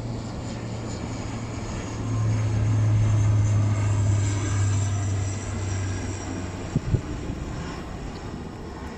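Airliner on its landing approach: a steady low engine drone that swells about two seconds in and drops away near seven seconds, with a faint high whine slowly falling in pitch. Two sharp knocks come just as the drone drops.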